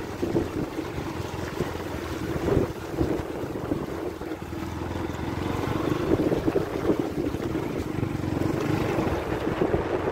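Motorcycle riding through a shallow, stony river: the engine running under gusty wind noise on the microphone, with water splashing under the wheels.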